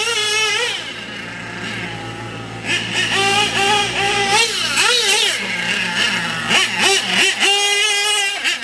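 Team Associated SC8 1/8-scale short-course truck's nitro engine revving as the truck is driven hard, its pitch holding, dipping and climbing again with the throttle. About a second in it falls lower and quieter, then revs back up near the three-second mark.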